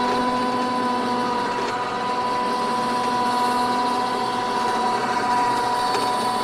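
Front-mounted electric winch on a Yardcart YS200 running under load, a steady motor whine as it winds in cable and lifts the front of the vehicle off the ground.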